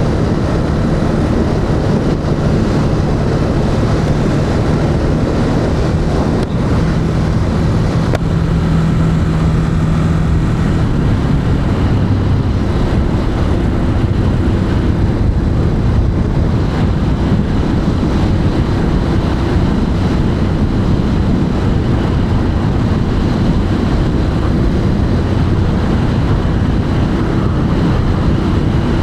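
Ducati Monster 821's 821 cc L-twin engine running through its stock exhaust while riding in city traffic, with a steady engine note that shifts in pitch about eleven seconds in.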